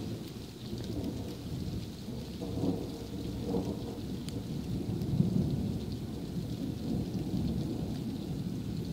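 Rolling thunder rumbling over steady rain. The rumble swells and peaks about halfway through.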